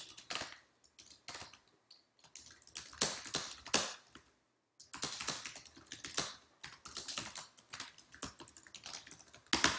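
Typing on a computer keyboard: irregular runs of key clicks, with a pause of about a second a little past the middle.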